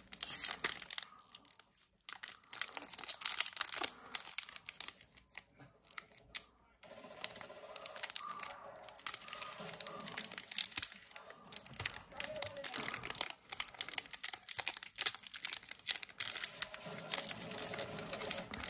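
Foil wrapper of a Yu-Gi-Oh booster pack crinkling and tearing open, then cards being handled. It is a run of crackles and rustles with a couple of short pauses.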